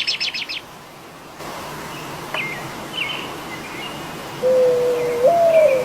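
Birds chirping, opening with a rapid high trill of chirps, then scattered short chirps over a steady hiss. About two-thirds of the way in, a long held low tone enters, rising and then falling.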